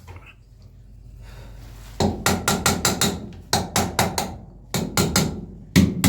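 Hammer blows on the metal parts of a 12-volt starter motor, in quick runs of three or four sharp strikes starting about two seconds in.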